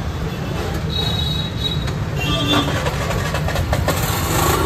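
Steady low rumble of street traffic, with a short horn toot about two seconds in and a few light clinks in the middle.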